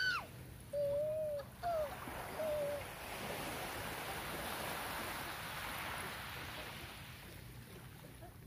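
Small wave washing up a sandy beach and drawing back: a soft rushing swell that builds from about three seconds in and fades over the next four. Before it, a few short drawn-out calls.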